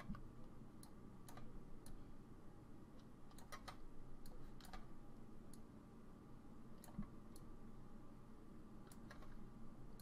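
Faint computer mouse clicks: about a dozen single and quick double clicks at irregular intervals, over a faint steady hum.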